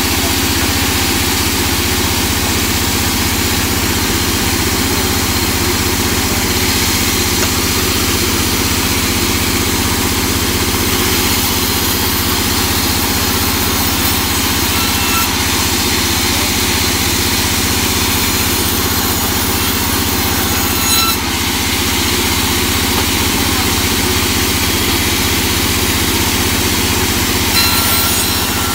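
A large vertical band saw running steadily as its blade rips teak boards lengthwise: constant motor hum under the hiss of the blade cutting the wood.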